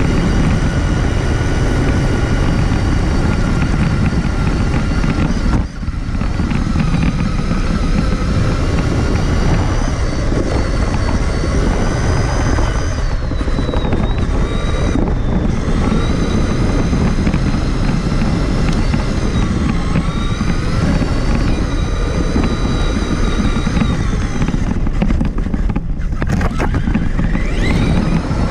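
Electric RC truck's motor and drivetrain whining, the pitch rising and falling with the throttle, over a heavy rumble of tyres and chassis on rough ground, heard from onboard the truck. The sound dips briefly about six seconds in.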